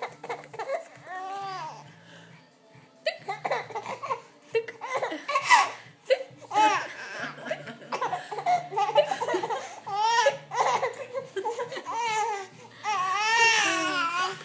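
Young infant laughing while being tickled: repeated bouts of high-pitched, rising-and-falling giggles, with the longest bout near the end.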